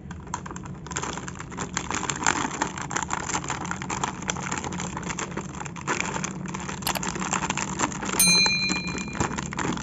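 Clear plastic toy packaging crinkling and rustling as it is handled and pulled open, a dense crackle of many small clicks. About eight seconds in, a short bell-like chime of a few high steady tones sounds: a subscribe-button sound effect.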